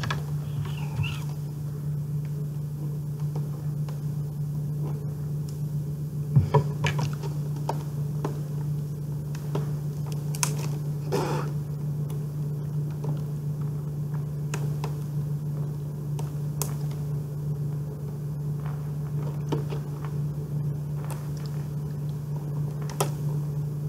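Scattered crinkles and clicks of plastic shrink wrap being picked at and peeled off a VHS tape case, over a steady low hum.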